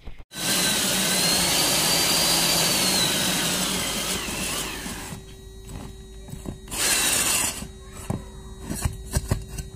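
Power drill boring the pipe hole through a wall for an air conditioner. It runs loud at full speed for about four seconds, its whine dropping as it slows, then grinds on more quietly with another loud burst about seven seconds in and a few knocks.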